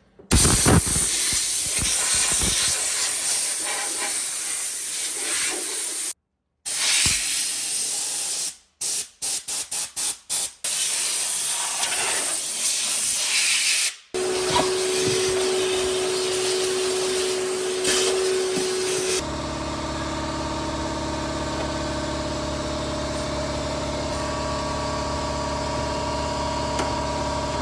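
Water injection cleaning tool spraying, a loud hiss that cuts off and restarts several times, with a run of quick on-off bursts. About halfway through the hiss gives way to a steady machine hum with a held tone, then a lower, even motor hum.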